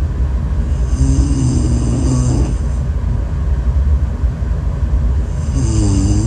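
A sleeping person snoring twice, about a second in and again near the end, each snore a drawn-out tone that dips and rises in pitch, over a steady low rumble.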